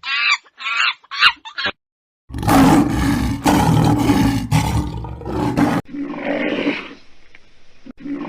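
Big cat roaring: a long, loud, rough roar in the middle, with a weaker call after it. It is preceded by a few short pitched calls from another animal.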